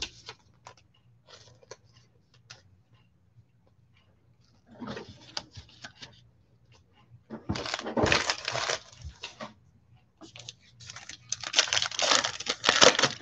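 Trading-card pack wrapper being torn open and crinkled by hand, in three bursts of crackling and tearing, the last and loudest near the end.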